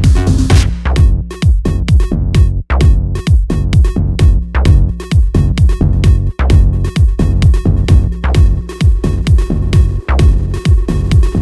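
Electronic dance music with a steady, fast drum-machine beat and a heavy bass line.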